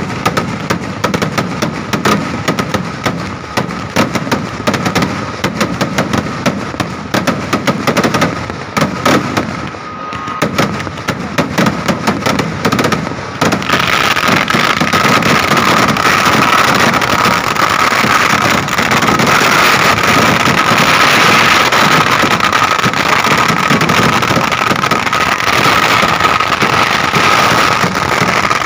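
Massed fireworks and firecrackers going off: a fast, uneven barrage of sharp bangs, which about 13 seconds in thickens into a continuous, louder crackling roar as rockets launch from the ground.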